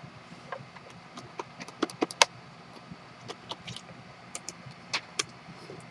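Cardboard and plastic packaging of a trading-card hobby box being handled and opened: irregular sharp clicks and crinkles, loudest about two seconds in and again near five seconds.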